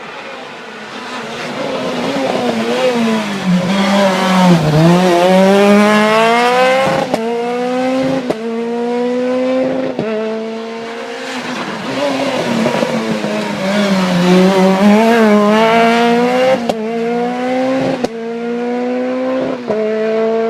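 Rally car engines at high revs passing close, twice about ten seconds apart. Each time the engine note dips as the car goes by, then climbs through quick upshifts, each gear change briefly breaking the tone.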